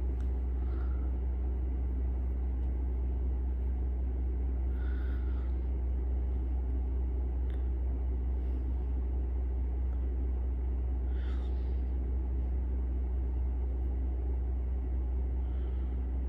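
Steady low hum of background room noise, with a few faint, brief soft sounds over it.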